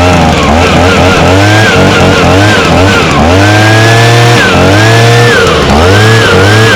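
Stihl BG55 handheld leaf blower's 27cc two-stroke engine running and being revved up and down over and over, held at high speed for about a second near the middle before dropping back.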